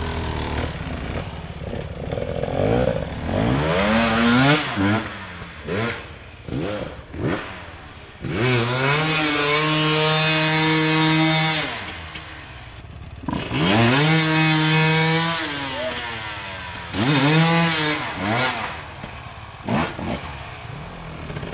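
Enduro dirt bike engines revving hard in repeated bursts. The pitch sweeps up and twice holds high for two to three seconds around the middle, with shorter blips of throttle before and after.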